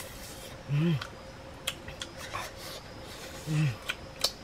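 Two short closed-mouth hums from a man's voice, each rising and then falling, about a second in and again near the end, among scattered sharp clicks and scrapes.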